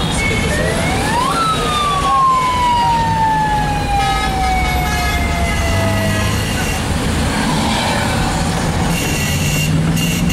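A siren winds up quickly to a high pitch about a second in, then slides slowly down over about five seconds. Dense road traffic runs beneath it, with short car-horn toots.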